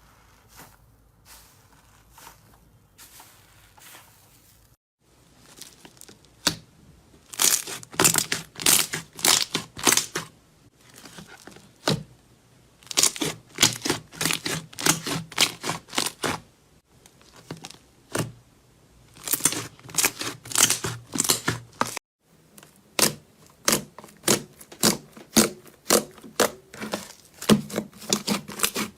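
Slime being pressed and poked by hand, making a quick series of sharp crackling pops and squelches in bursts of a few per second. The first few seconds are faint, and the pops grow loud after about five seconds.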